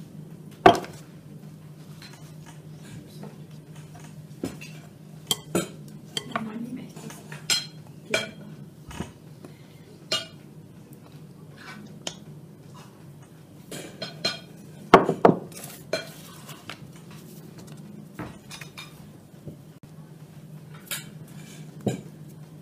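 Kitchenware clinking and knocking: a drinking glass scooping flour against a stainless steel bowl and a small metal sieve tapping over a glass mixing bowl, in scattered sharp knocks, the loudest about a second in and around fifteen seconds in. A low steady hum runs underneath.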